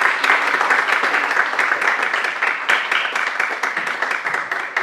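Audience applauding: many hands clapping at once, loud and dense, slowly tapering off near the end.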